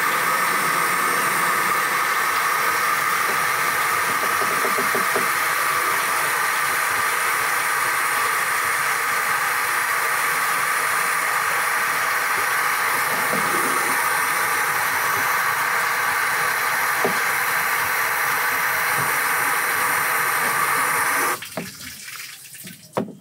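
Water from a garden hose rushing through a car's radiator hose and cooling system during a coolant flush, a steady hiss that stops abruptly about 21 seconds in. A few short knocks follow near the end.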